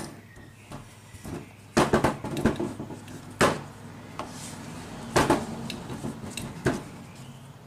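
Hands handling rolled-out chebureki dough on a floured work table, with a handful of sharp knocks and clatters against the tabletop, spread out one every second or two, the loudest about two seconds in.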